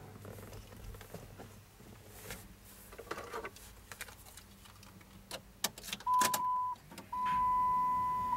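Keys click and jangle in the ignition of a 2009 Dodge Ram Mega Cab, and then, about six seconds in, the truck's steady high electronic warning tone comes on as the key is turned to on. The tone breaks off once, briefly, and carries on.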